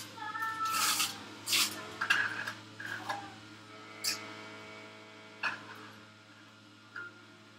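Electric juicer running with a steady low hum while kale is fed through it, with several short crunching, grinding strokes as the leaves go in. The strokes thin out and grow quieter towards the end. Kale is hard on this juicer.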